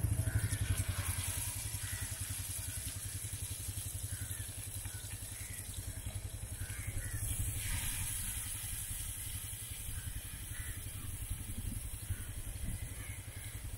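Mackerel frying in coconut oil, a faint sizzle with scattered crackles over a steady low rumble.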